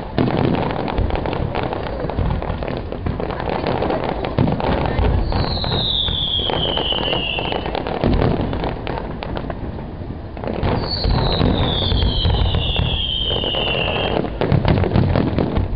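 Aerial firework shells bursting in a dense run of bangs and crackling. A whistle falls in pitch about five seconds in, and two overlapping falling whistles follow from about eleven seconds.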